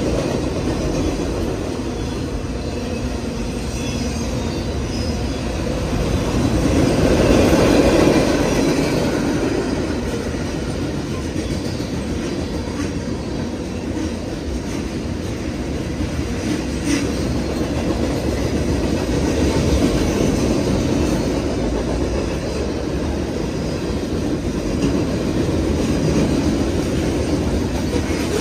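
Freight train cars rolling past close by: a steady rumble and rattle of steel wheels on rail, swelling louder about a quarter of the way through, with occasional clacks over rail joints.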